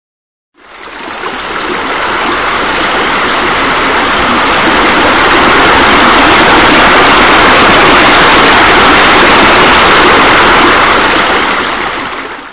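Steady rushing of falling water, like a waterfall or spillover. It fades in about half a second in, grows louder toward the middle and fades out near the end.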